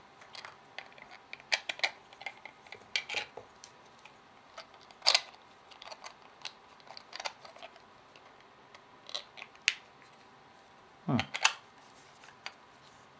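Irregular clicks and taps of a black plastic radio case being handled and its parts pressed together by gloved hands, with a louder click about five seconds in.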